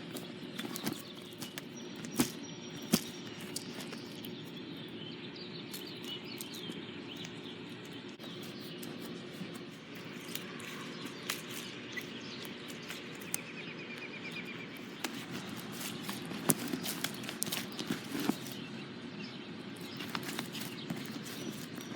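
Outdoor ambience with birds chirping now and then, and scattered sharp clicks and pops of slime being squished and stretched by hand.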